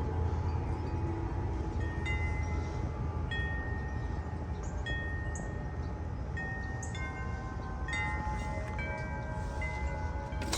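Metal wind chimes rung by the wind, several tubes struck at irregular moments, each tone ringing on, over a steady low rumble of wind on the microphone.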